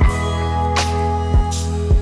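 Background music: held bass and guitar-like notes with drum hits every half second or so.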